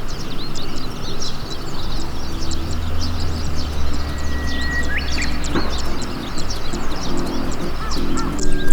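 Many small birds chirping and twittering rapidly, with a clear whistled note about four seconds in, over a low steady hum.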